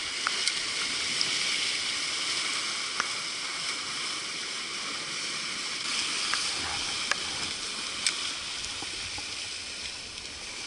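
Sea surf breaking and washing over shoreline rocks, a steady hiss of churning water, picked up through a waterproof camera housing. A few sharp ticks stand out over it.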